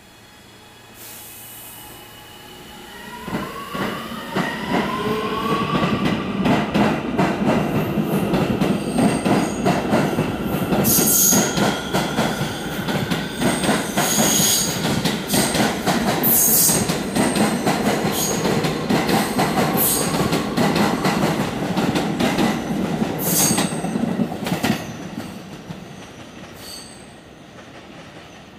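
R211A subway train accelerating out of the station: its motors whine, rising in pitch as it pulls away, then its wheels clatter over the rail joints with repeated brief high wheel squeals, and the sound fades near the end as the train leaves.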